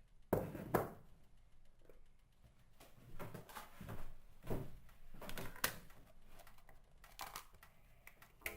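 Irregular knocks and clatters of kitchenware being handled during cooking, about half a dozen sharp hits with quieter shuffling between, the loudest near the start.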